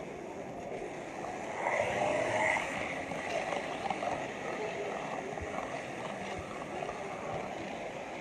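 Model railway camera wagon rolling along the track, a steady rolling noise that swells briefly about two seconds in, over the murmur of a crowded hall.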